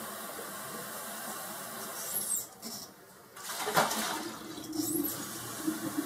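Water running into a kitchen sink, a steady rush that is shut off about two and a half seconds in, followed by a few light knocks and handling sounds.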